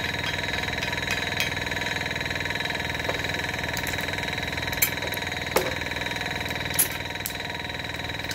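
Small tank-type airbrush compressor running steadily with an even motor hum. A few light metallic clicks come from the hose fittings being handled.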